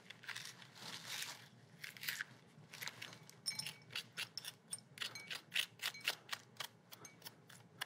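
Metal spoon scraping the seeds and stringy pulp out of the seed cavity of a peeled butternut squash half: a faint, irregular run of short scrapes and clicks, a few with a light metallic ring.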